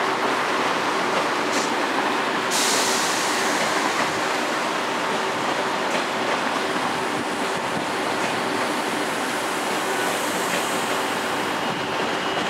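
TGV Duplex double-deck high-speed train rolling slowly through the depot, giving a steady rumble of wheels and running gear with a constant hum. A high hiss sets in abruptly about two and a half seconds in and dies away near the end.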